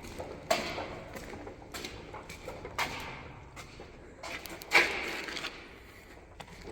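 Slow footsteps on a wooden floor inside a concrete-lined tunnel, roughly one a second, each step echoing briefly, with a louder knock a little under five seconds in.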